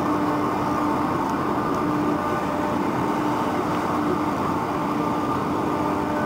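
Passenger ferry's engines and machinery running steadily: a constant rushing noise with a few steady humming tones over it.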